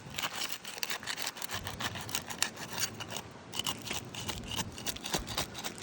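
Asphalt shingles being pried loose along their seal strip: a run of irregular scraping, crackling clicks as the sealant breaks and the brittle, granule-worn shingles scrape and tear.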